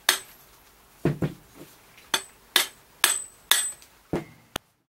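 A metal tube slid down a bicycle fork's steerer tube taps the bottom cone (crown race) down onto the fork crown. There are about nine sharp metallic knocks, some with a short ring, roughly two a second, as the cone is driven square onto its seat.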